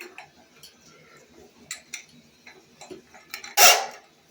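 Scattered clicks and knocks of tools being worked on a clogged drain line, then one loud, short whoosh about three and a half seconds in.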